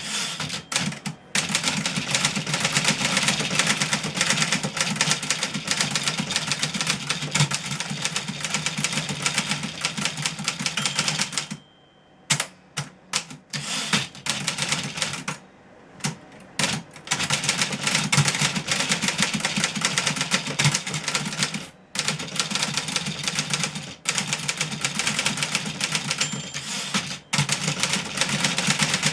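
Fast, continuous typing on a fully serviced 1963 Remington Model 11 manual portable typewriter: a rapid run of typebar strikes, with two short pauses of about a second near the middle.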